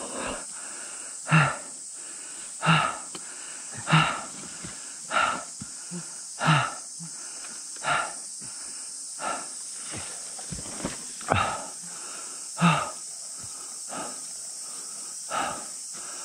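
A person breathing hard and panting, with a loud, partly voiced exhale about every second and a half, exhausted from hauling a fallen dirt bike on a steep climb. A steady high hiss runs underneath.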